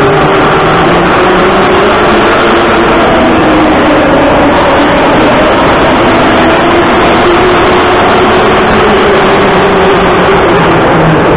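Metro train pulling into the station and running past along the platform: a loud, steady rumble of wheels and motors on the rails, with a faint wavering whine.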